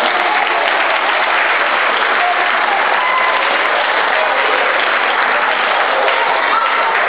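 An audience applauding steadily, the clapping starting at once and holding at an even level, with a few voices faintly heard over it.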